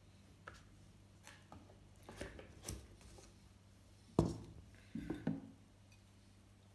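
Containers and tableware handled on a table: light clicks and taps, then a sharper knock about four seconds in and two more knocks a second later.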